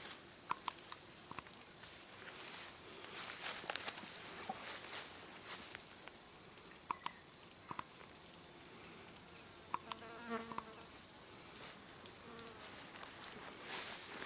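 Insect chorus: a high, shrill chirring that swells and drops back in phrases of a second or two, with a few faint clicks like twigs or footsteps underneath.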